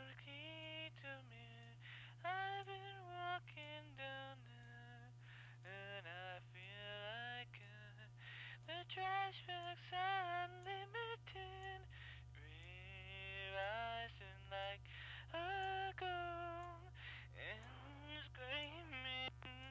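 A high-pitched voice singing in quick phrases of short, sliding notes, sounding thin, over a steady low hum; a second, deeper hum joins about halfway through.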